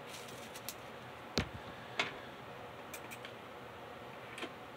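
Light clicks and taps of small plastic HO-scale model train cars being handled on a tabletop, a handful of short ticks with the two loudest about a second and a half and two seconds in.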